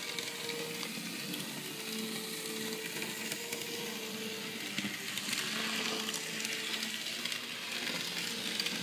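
ConCor/Rivarossi 4-6-2 Pacific model steam locomotive running steadily along the track under DCC control. Its small motor, gears and wheels make a continuous high whirring noise.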